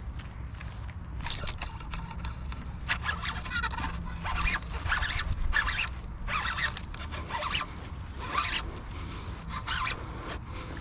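Fishing reel being cranked in a series of short, uneven bursts as a hooked bass is reeled in to the bank.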